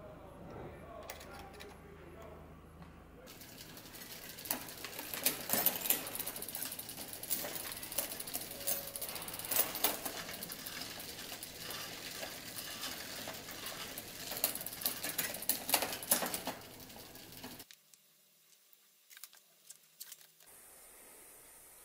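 Drivetrain of a vintage Peugeot road bike on a work stand: a wrench working on the rear derailleur, then the chain running over the rear cassette and through the derailleur as the wheel is turned. This makes a rapid, busy mechanical ticking that stops abruptly about four seconds before the end. Near the end there are a few faint rustles of handlebar tape being wrapped.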